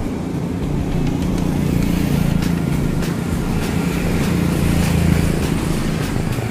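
Road traffic passing close by: a steady rumble of engines, with one vehicle's engine hum swelling from about two seconds in and fading near the end.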